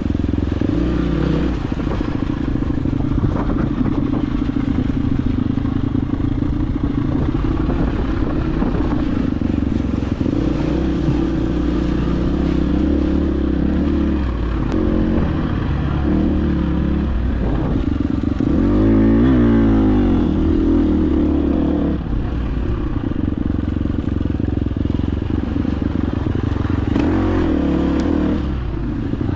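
Dirt bike engine running continuously under changing throttle as it is ridden along the trail, with a louder swell about two-thirds of the way through.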